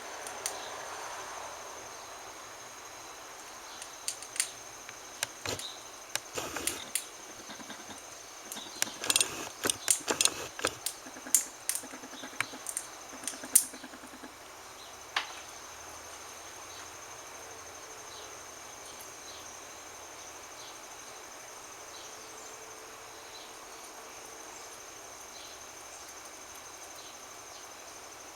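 Irregular crackling clicks made by a pet animal, a dense run from about four to fourteen seconds in and one more near fifteen seconds, over a steady high-pitched tone.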